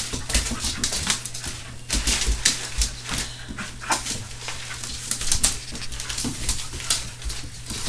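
A puppy and a pet bird scuffling in play: a quick, irregular run of clicks, taps and light knocks from claws, beak and paws.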